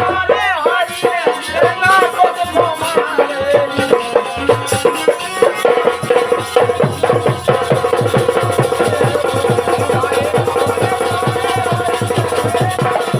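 Rai folk music: a wavering melodic lead with pitch bends over fast, dense drumming and rattle-like percussion.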